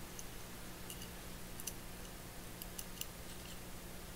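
A handful of faint, light clicks from small metal parts of a Yankee ratchet screwdriver's mechanism being handled and picked up, over a faint steady low hum.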